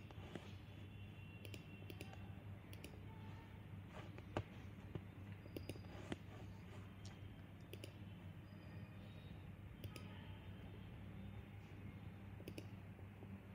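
Faint, irregular clicks of a computer mouse, spaced a second or more apart, over a low steady hum.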